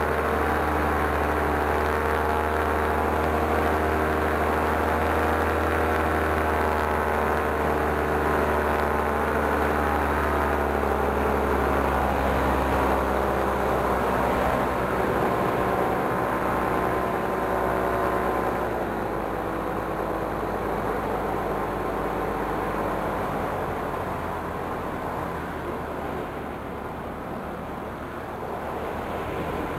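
Paramotor engine and propeller running steadily. About halfway through its pitch wavers and the even tone breaks up, and the sound eases off somewhat in the second half.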